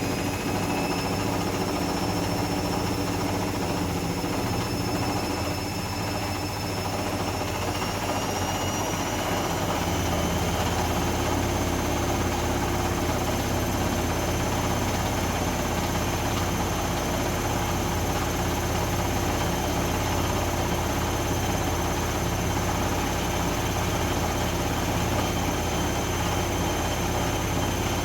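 Zanussi ZE 16 washing machine in its 1600 rpm final spin, drum and motor speeding up. The motor's whine rises for about the first ten seconds, then holds steady at top speed. Under it runs a heavy low rumble from a badly unbalanced load shaking the machine.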